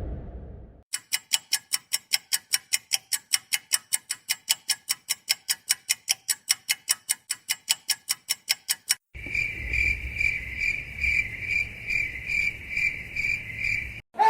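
A fading whoosh, then fast, even ticking at about four ticks a second for about eight seconds, then crickets chirping in a steady high pulsing trill, about two pulses a second, over a low rumble, cutting off just before the end.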